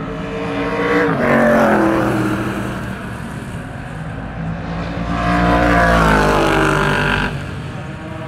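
Historic racing cars passing at speed on a circuit straight, their engine notes dropping in pitch as one car goes by about a second in and another near the end.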